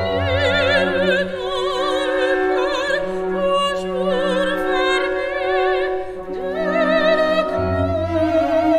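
Credits music: an operatic voice sings with wide vibrato over sustained orchestral notes, the low notes changing every couple of seconds.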